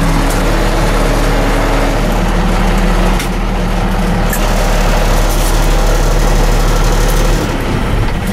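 International 4700 garbage truck's DT466 diesel engine running steadily, heard from the cab; the sound falls away near the end.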